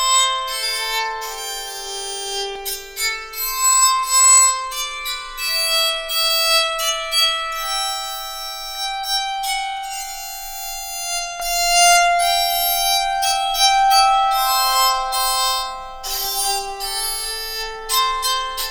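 Solo fiddle playing a melody of single notes, many of them held, with no accompaniment.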